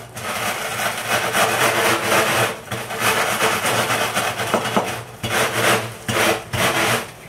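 Wheaties and Rice Chex cereal in a bag crunching as it is crushed under a wooden rolling pin. The pin is rolled in four long strokes with short breaks between them.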